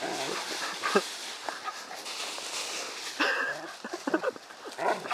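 Dry fallen leaves rustling and crunching as a standard poodle bounds through a leaf pile, with a few short dog vocal sounds, about a second in, around three seconds in and near the end.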